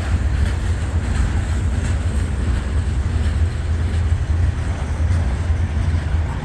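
A slow-moving freight train's cars rolling past: a steady low rumble with a few faint clicks.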